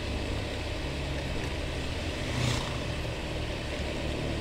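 Honda BeAT automatic scooter's small single-cylinder engine running steadily while riding, mixed with steady wind and road noise at the rider's helmet.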